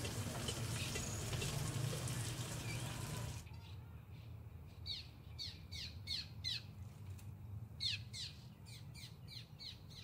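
A steady rushing noise for the first three seconds or so, then a small bird chirping in two runs of quick, falling chirps.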